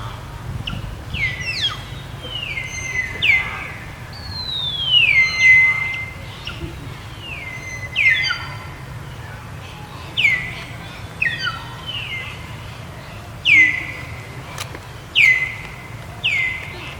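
A series of high-pitched animal calls, about a dozen, each one sliding sharply down in pitch and then levelling off briefly, repeated every second or two over a steady low hum.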